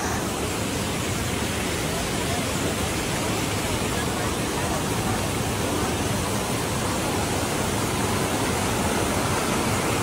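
Steady rushing of a waterfall and river water pouring over rocks into a pool.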